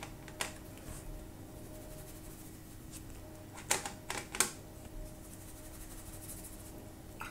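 A few light clicks and taps of a paintbrush on a watercolour palette, with three close together about four seconds in, over a faint steady hum.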